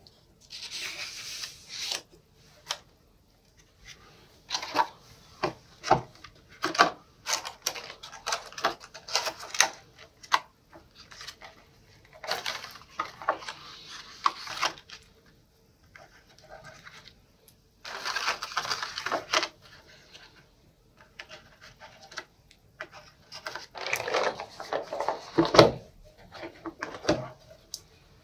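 Hands handling art supplies on a tabletop: paper sliding and rubbing, sticks of soft pastel clicking against each other and their tins, and a hinged plastic storage case being opened. The sounds come in short, separate bursts of rustling and clicking.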